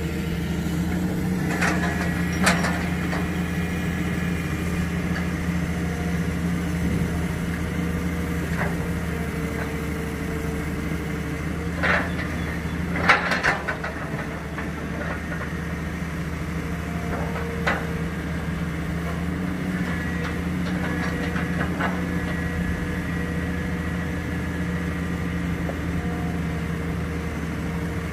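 Tracked excavator's diesel engine running steadily, with a few sharp metallic knocks and clanks from the working machine, the loudest a cluster about halfway through.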